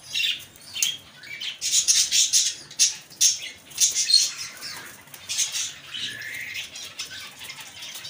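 Fancy pigeons fluttering and flapping their wings in a wire cage, in short flurries, with a faint squeak or two.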